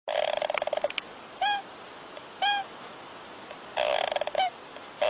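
A small sleeping animal making pitched snoring sounds. Trains of fast pulses come at the start and again near the end, with short high calls that rise and fall in between, about a second apart.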